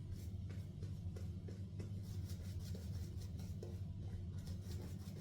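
Badger-hair shaving brush working lather on the face: a quick run of soft, scratchy brushing strokes, over a steady low hum.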